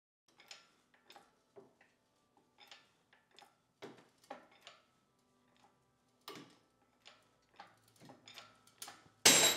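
Faint scattered clicks and ticks as an engine hoist puts racking stress on a glued joint with an epoxy tenon. About nine seconds in comes a loud, sharp crack as the joint breaks.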